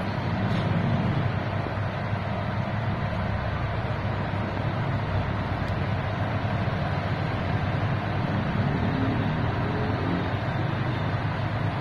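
A steady low hum with a hiss over it, even throughout, with no distinct knocks or strikes.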